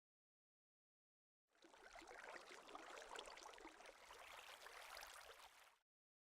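Faint trickling, crackling water, starting about a second and a half in and cutting off abruptly near the end.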